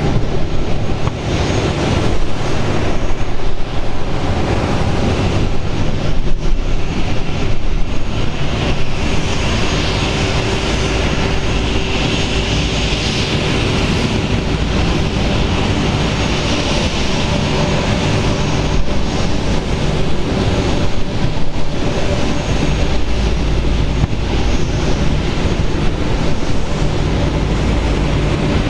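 Boeing 777-200's twin turbofan jet engines at taxi power as the airliner taxis: a steady jet rumble, with a hissing whine that swells in the middle and then fades.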